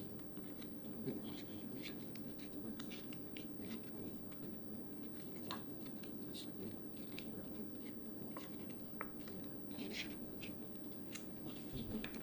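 Scattered light clicks and rustles of paper or card being worked by hand, irregular and faint, over a steady low hum.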